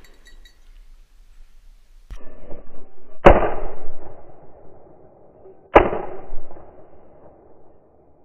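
Two shotgun shots fired at a flushed woodcock, about two and a half seconds apart, each with a long echoing tail. A burst of noise starts about a second before the first shot.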